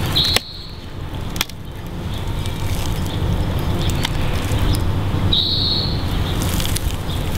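Wooden top bars of a top-bar beehive being pried and shifted with a metal hive tool: two sharp knocks in the first second and a half and two short, high squeaks, one at the start and one about five seconds in, over a steady low rumble.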